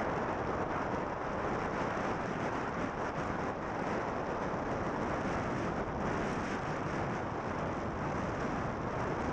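Steady wind noise buffeting the microphone of a camera on a moving motorbike, with the ride's road and engine sound blended into it and no clear engine note standing out.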